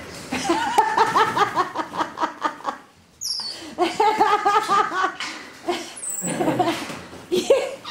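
A person laughing hard in two long bouts of quick, pulsing ha-ha bursts, with a short break about three seconds in.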